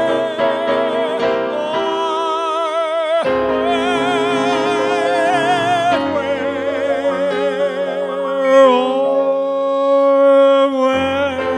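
Live cabaret singing with piano accompaniment: the singer holds the closing notes of a ballad with a wide vibrato over sustained piano chords.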